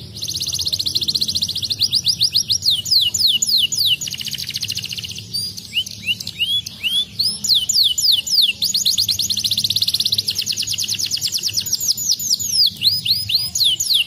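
Domestic canary singing: a continuous run of fast trills, each a rapid series of repeated down-sweeping notes, switching from one trill type to the next, some so quick they blur together and some slower with distinct notes. There is a brief softer stretch about four seconds in.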